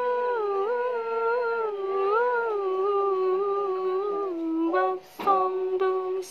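Wordless humming of a slow, mournful melody as soundtrack music. It opens on a long held note, then slides slowly between notes, breaks off briefly about five seconds in, and settles on another held note.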